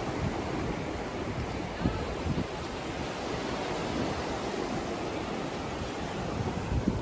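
Sea waves washing onto a beach: a steady rush of surf, with a couple of brief knocks about two seconds in.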